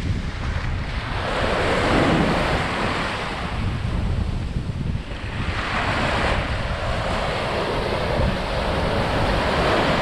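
Small waves breaking and washing up the sand at the water's edge, rushing in twice a few seconds apart. Wind buffets the microphone with a steady low rumble underneath.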